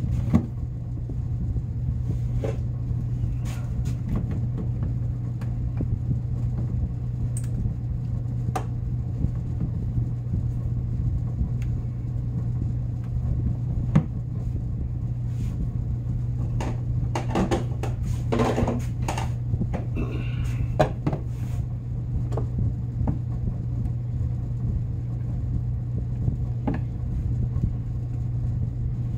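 Steady low machine hum, with scattered clicks and knocks as a snowmobile oil tank, hose fittings and a screwdriver are handled, busiest about two-thirds of the way through.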